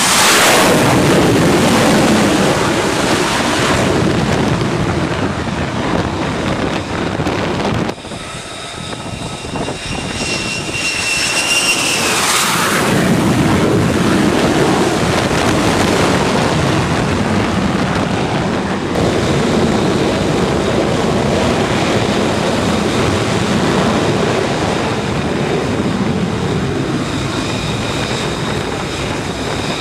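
F-35C Lightning II's F135 jet engine on a carrier flight deck: a loud jet roar as the fighter comes in to land. About eight seconds in, the roar drops away to a high, steady turbine whine, which swells into a roar a few seconds later and then runs on steadily.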